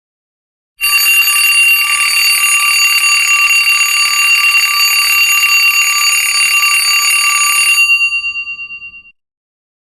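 Alarm-clock-style ringtone: a bell alarm ringing rapidly and continuously. It starts about a second in, stops abruptly near the end, and its ring fades out over about a second.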